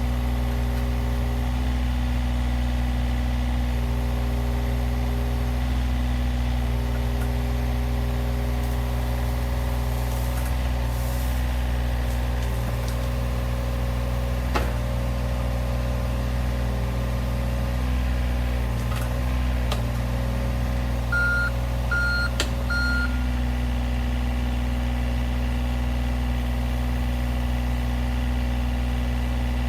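John Deere 35G compact excavator's diesel engine running steadily under hydraulic load, with whining tones as the boom and the one remaining track are worked. About two-thirds of the way through, the machine gives three short beeps, and a few sharp knocks come from the machine around the same time.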